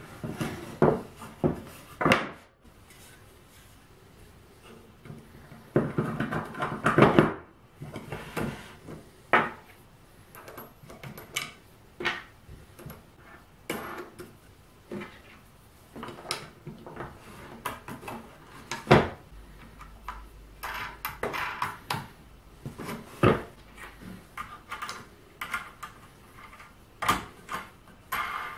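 Plywood jig parts and a hardwood strip being set down and slid on a workbench, with metal bolts and washers clinking. The sound is irregular knocks and clicks, with a longer stretch of rubbing and scraping about six to seven seconds in.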